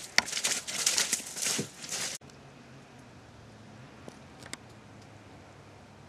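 Footsteps crunching on a thin layer of snow over a trail for about two seconds, about two steps a second, then they cut off suddenly. After that a faint steady low hum remains, with a couple of small clicks.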